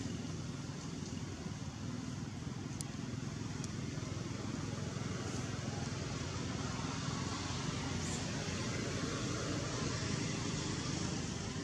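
Steady low rumble with an even hiss, unchanging throughout, with no distinct events in front of it.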